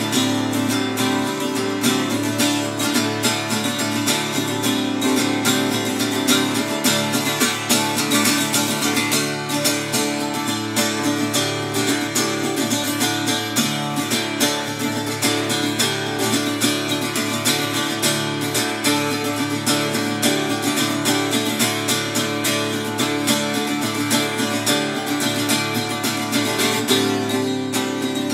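Acoustic guitar strummed in a steady, busy rhythm: an instrumental passage with no singing.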